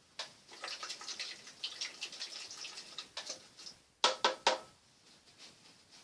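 Crinkly rustling of plastic or foil wrapping being handled on a new paintbrush for a few seconds, then three quick sharp clicks about four seconds in.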